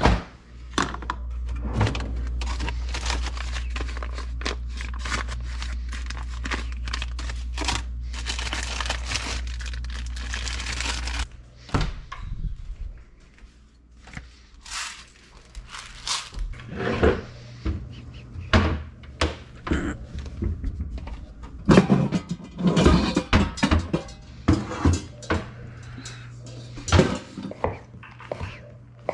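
Kitchen handling sounds: a string of knocks, clunks and clatter as jars, containers and a pot are moved about, over a steady low hum that stops about eleven seconds in. Near the end a knife begins cutting on a wooden board.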